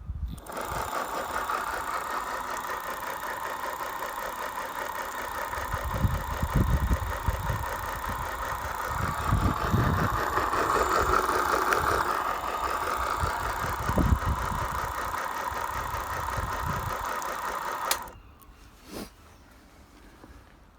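Bafang BBS02 mid-drive motor spinning with no load, its chainring removed, making a grinding, rumbling whine that stops abruptly about 18 seconds in, with a few low thumps along the way. The grinding comes from the small bearing at the end of the main helical drive shaft, which is packed with dirt, old contaminated grease and water and has worn loose.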